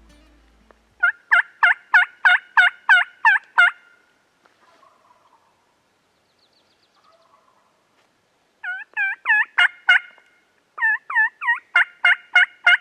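Turkey yelping in three runs of sharp, evenly paced yelps, about three a second: one run about a second in, and two more close together near the end.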